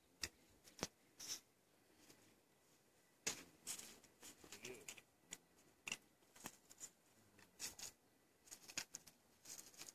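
Near silence with faint, irregular clicks and rustles, a handful of them a little louder than the rest.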